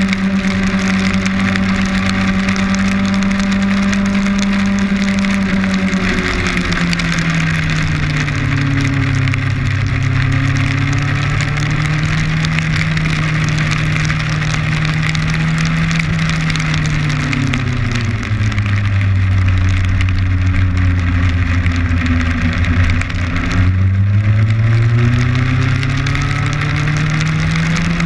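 Kawasaki Ninja motorcycle engine running at road speed over a constant hiss of heavy rain and wind hitting the camera. The engine note drops in two steps as the bike slows, then climbs again in the last few seconds as it accelerates.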